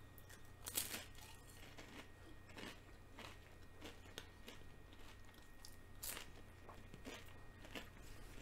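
Faint, irregular clicks and small handling noises, about eight in all, over a steady low hum.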